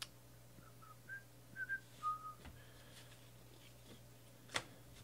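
A few short, soft whistled notes from a person whistling to himself, followed near the end by a single click of the card stack being handled.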